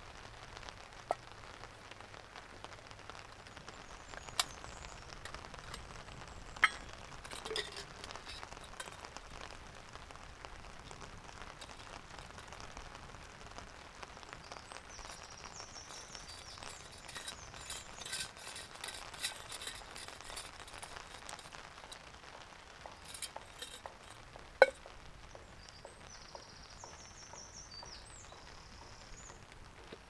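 Stainless-steel camp mugs clinking and knocking as they are handled, poured between and set down on wood: a few sharp clinks, the loudest late on. Underneath, a small wood fire crackles faintly in a folding camp stove.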